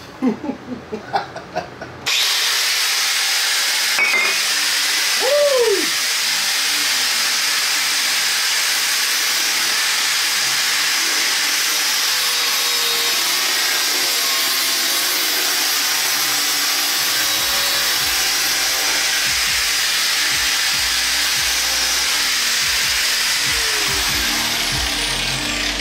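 Hilti corded angle grinder starts suddenly about two seconds in and runs at full speed, its cutting disc slicing through a cardboard box with a steady, loud hiss and whine that keeps on until near the end.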